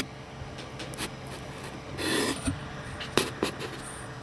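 Handling noises from close work on small parts: a few sharp clicks and a short scraping rub about two seconds in.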